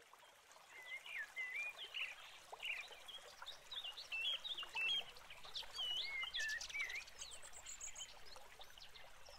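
Songbirds chirping and whistling, many short rising and falling notes over a soft background hiss, fading in at the start, with a quick high trill about three-quarters of the way through.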